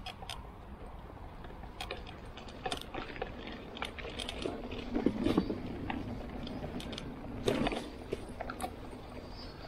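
Irregular clicks, knocks and scuffs with light metallic jingling from climbing gear and holds being handled, over a steady low hum. The loudest clusters come about five seconds in and again about seven and a half seconds in.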